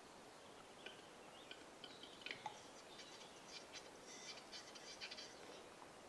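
Male western capercaillie's display song, faint: single dry clicks that speed up into a dense run of rapid clicks and rasping, scraping notes between about three and five and a half seconds in.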